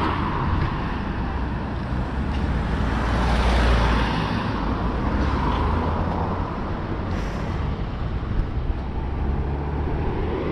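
Road traffic passing close by: the engines and tyres of trucks, buses and cars going by, with the loudest pass about three to four seconds in.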